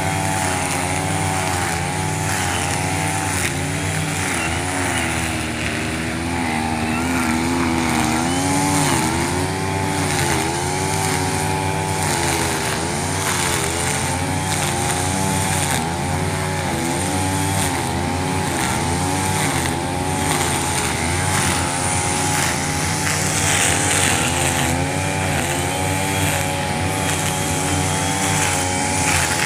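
A two-stroke brush cutter with nylon trimmer line runs hard while cutting grass. Its engine pitch swells and dips about once a second as the throttle is worked.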